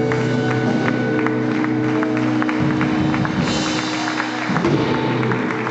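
Live blues-rock band music, with long held notes that change pitch a couple of times and a hiss of noise in the highs from about three and a half seconds in.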